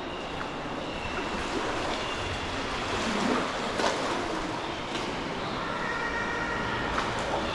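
Sea water washing and splashing against rock, with a few sharp splashes or knocks. Several high-pitched calls are heard over it, more of them near the end.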